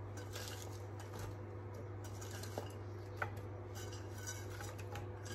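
Faint handling sounds of sliced raw onion being picked from a glass bowl and dropped over lamb and potatoes in a glass baking dish, with a couple of small clicks about three seconds in. A steady low hum sits underneath.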